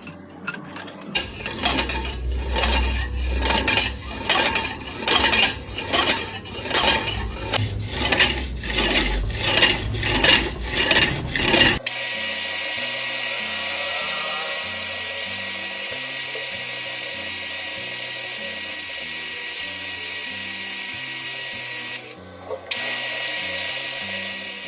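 Metal machining noise with background music: pulsing cutting sounds for about twelve seconds, then an abrupt change to a steady high-pitched hiss with a faint whine. The hiss drops out briefly near the end.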